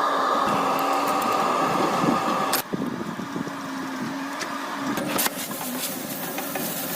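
A machine running steadily with a crackling noise over it and scattered clicks; it turns quieter about two and a half seconds in.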